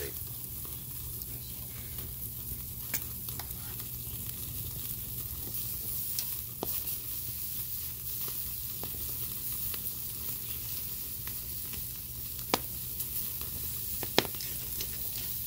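Picanha steaks sizzling fat side down on a wood-fired grill grate: a steady sizzling hiss, broken by a few sharp pops, the loudest two near the end.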